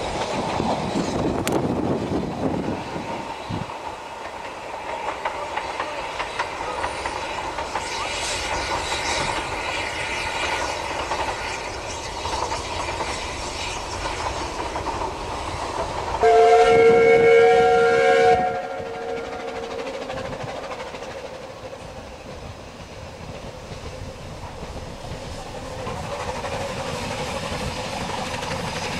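Narrow-gauge steam train running, its wheels and coaches clattering, louder in the first few seconds. About sixteen seconds in, a steam locomotive whistle gives one steady two-note blast of about two seconds, the loudest sound. Near the end the sound of a train grows louder again.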